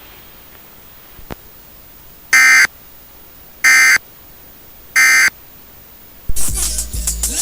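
Emergency Alert System end-of-message signal: three short bursts of buzzing digital data tones, about a second and a third apart, over a faint hiss. Music starts near the end.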